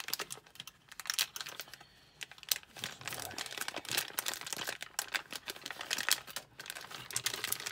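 Clear plastic bag crinkling and crackling as it is handled and picked open by hand: irregular crinkles that thin out briefly about two seconds in, then come thick and steady.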